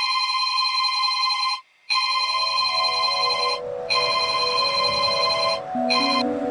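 Samsung smartphone ringtone ringing for an incoming call, in repeated rings of just under two seconds each with short breaks between them. Soft, slow soundtrack music fades in under the ringing about two seconds in.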